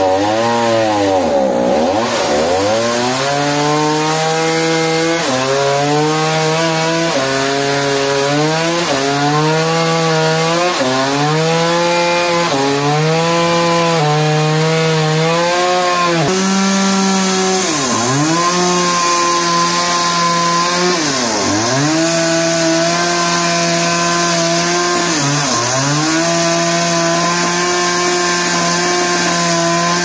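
Large Stihl chainsaw running at high revs as it cuts through a huge tree root. The engine note steps up and down about every two seconds under the changing load in the first half, and dips sharply and recovers a few times, once just after the start and three times in the second half.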